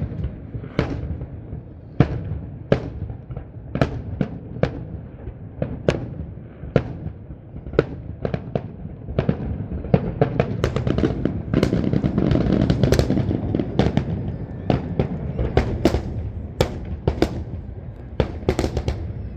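Fireworks display, with aerial shells bursting in a steady run of sharp bangs. About halfway through the bangs come faster and merge into a continuous rumble.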